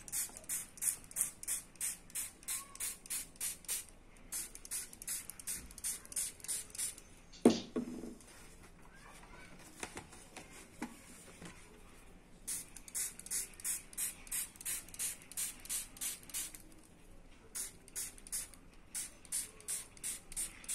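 Small hand-pump spray bottle squirted rapidly onto a sheet of paper, short hisses about three a second in runs of several seconds, with a pause in the middle. A single louder knock sounds about seven and a half seconds in.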